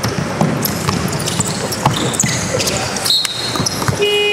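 Basketball dribbled on a hardwood court, with irregular bounces and sneaker squeaks. A short high whistle comes about three seconds in, and a steady high tone begins near the end as play stops.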